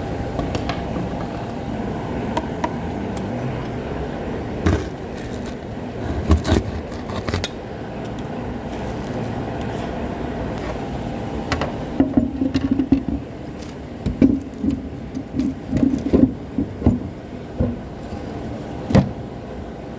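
Steady machine hum with scattered sharp knocks, then a run of short clanks and clatters in the second half.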